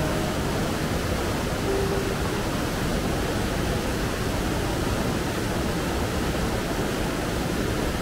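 Steady rush of a fast-flowing mountain stream tumbling over rocky rapids.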